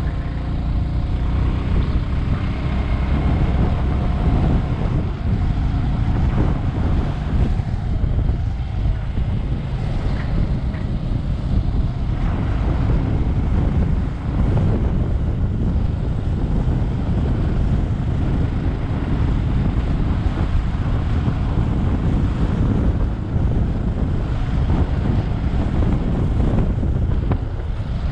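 Heavy wind buffeting on the microphone of a moving motorcycle, with the Bajaj Avenger 220's single-cylinder engine running underneath.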